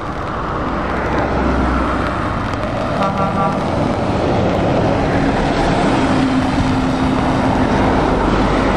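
Heavy lorries driving past on a wet road: diesel engines running and tyres hissing on the wet tarmac, with a short horn toot about three seconds in and a steady engine drone building in the second half.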